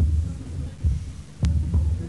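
Low drum beats in a slow, uneven pulse, about two a second, with a sharp click about one and a half seconds in.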